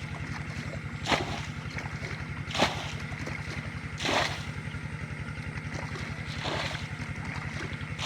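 Small boat engine chugging steadily with a fast, even beat, and a few brief louder noises every second or two.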